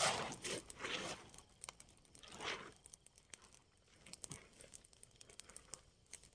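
Rustling and crinkling of a wet tent's fabric being handled as it is packed up. There are a few rustles in the first seconds, then scattered light crackles.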